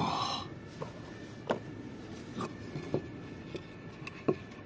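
Handling knocks: a piece of wood and a knife being picked up and set against a wooden tabletop, giving about half a dozen separate sharp knocks, the loudest one near the end.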